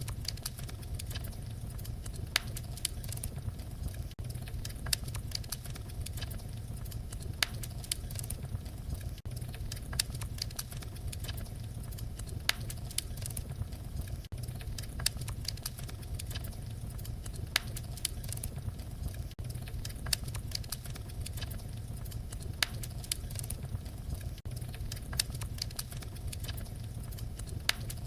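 Fireplace fire crackling: a steady low rumble of flames with frequent small snaps and a sharper pop every couple of seconds.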